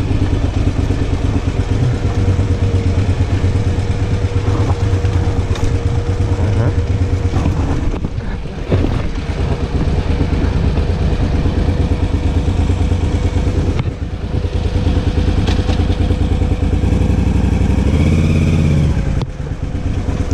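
KTM 990 motorcycle's V-twin engine running steadily under way, a low drone with a constant whine over it. It eases off briefly twice, then revs up and falls back near the end.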